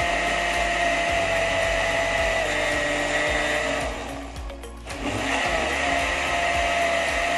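Countertop blender running, blending a green soup mixture, with a steady motor whine. Its level dips briefly about four seconds in, then comes back up.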